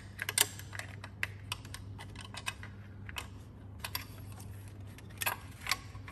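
Irregular light metal clicks and taps from a wrench and a steel bracket as a 10 mm nut is undone and the bracket is worked off the engine's thermostat housing.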